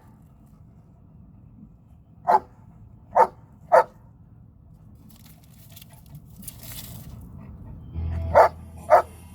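A dog barking: three short single barks close together, then two more near the end.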